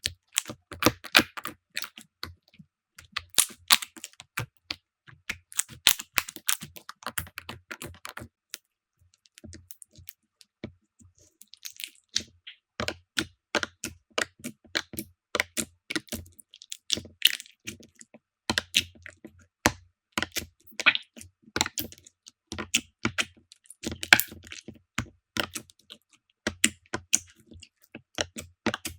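Slime being squeezed and pressed by hand, giving rapid, irregular crackling clicks like typing, with a short pause about nine seconds in before the clicking resumes.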